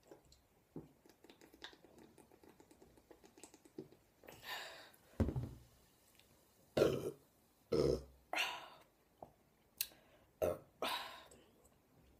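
A woman belching, brought on by gulping a 2-litre bottle of cola. After a quiet start come about six short, loud burps, close together, one after another through the second half.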